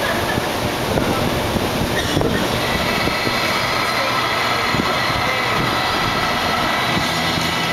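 Vertical wind tunnel for indoor skydiving running at flying speed: a loud, steady rush of air from its fans.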